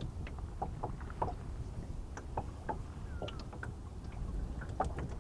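Faint, irregular clicks and ticks of small fishing tackle being handled as a rubber corn bait is fitted onto a hook rig, over a low steady rumble of wind and water around a small boat.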